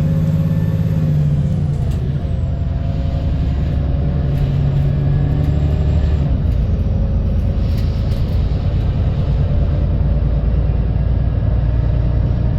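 VDL SB200 Wright Pulsar 2 single-deck bus under way, heard from on board: a steady low engine drone whose note dips about two seconds in and then picks up again. Light rattles and clicks come from the body, and a faint high whine fades out early.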